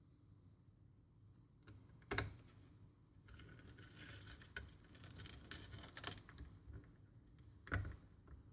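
Faint handling noises from laptop parts being worked on by hand: a sharp knock about two seconds in, a few seconds of light scratchy rattling, then another knock near the end.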